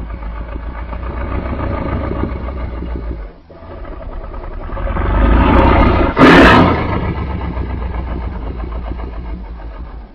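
Deep, rumbling growl offered as a reconstructed vocalization of the extinct giant crocodilian Purussaurus brasiliensis. It breaks off briefly, swells into a loud roar about six seconds in, then tails off.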